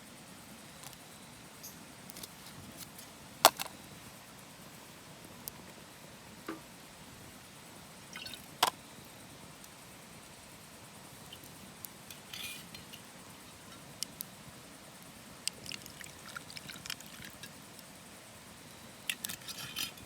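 Scattered small clicks, clinks and rattles of objects being handled, with one sharp knock a few seconds in and another near the middle, over a steady low background hiss.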